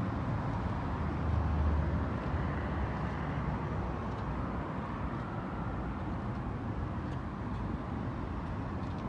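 Steady low outdoor rumble with no clear pitch, swelling briefly between one and two seconds in.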